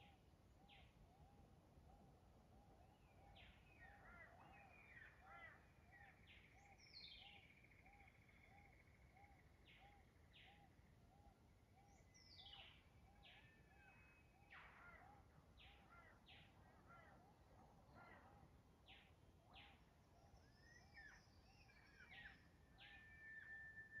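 Faint dawn chorus of forest birds. A low note repeats about twice a second and stops about three-quarters of the way through, with scattered short chirps and quick falling whistles above it.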